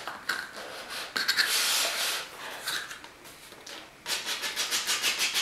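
Cardboard box being handled and opened: cardboard rubbing and scraping against cardboard, with a quick run of short, evenly spaced scrapes from about four seconds in.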